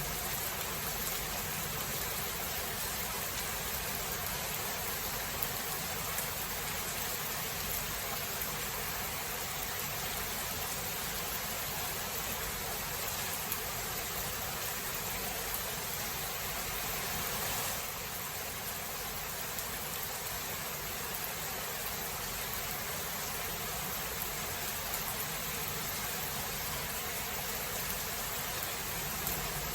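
Steady heavy rain of a thunderstorm, an even hiss with a few faint ticks, easing slightly a little past halfway; no thunder is heard.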